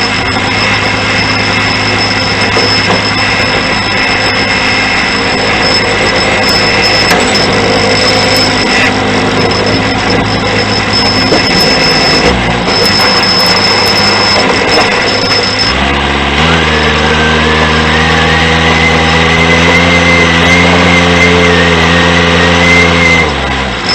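John Deere 210C backhoe loader's four-cylinder diesel engine running steadily with a high whine over it. About sixteen seconds in, the engine note drops and deepens and a wavering whine comes in for about seven seconds before the earlier sound returns.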